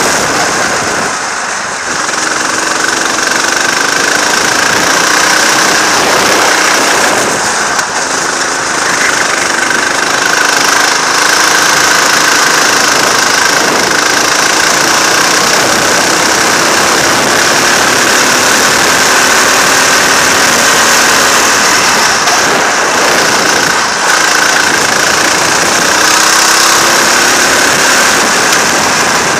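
Go-kart engine running hard at lap speed, its pitch climbing and dropping over and over as the throttle is opened and lifted through the corners, under a dense hiss of noise.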